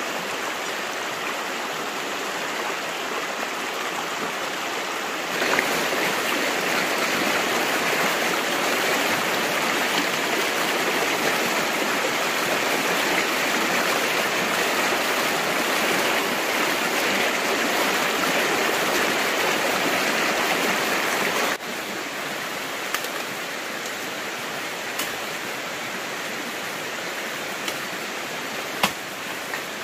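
Stream water rushing steadily, louder through the middle stretch, from about five seconds in until an abrupt drop about two-thirds of the way through. A couple of sharp knocks come near the end.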